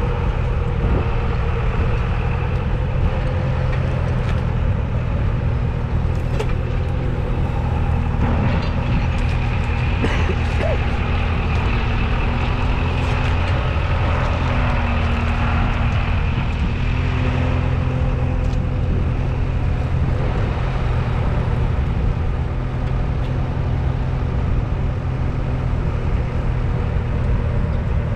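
Valtra A95 tractor's 4.4-litre four-cylinder diesel engine running steadily while the tractor pulls a reversible plough.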